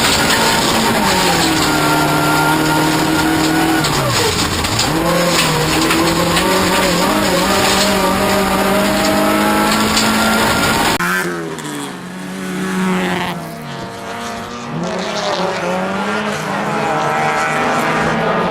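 Racing Toyota Corolla's engine running hard under load, its pitch rising and falling as the driver lifts, shifts and accelerates again, over tyre and road noise. The rumble and hiss thin out suddenly about eleven seconds in while the engine carries on.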